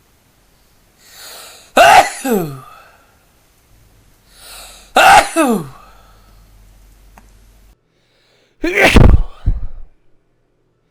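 A person sneezing three times, each an induced sneeze. Each of the first two starts with a quick breathy intake and ends in a falling 'ahoo'. The third, near the end, is the loudest, with a heavy low thump.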